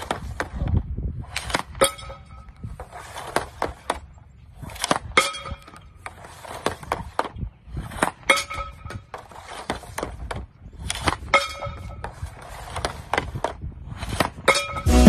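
Ice hockey pucks shot one after another with a stick at a net's top-corner targets. Each sharp crack of a shot is followed a moment later by a clank of the puck striking a target, several with a short ringing tone, about every three seconds, with lighter stick taps and puck clatter in between.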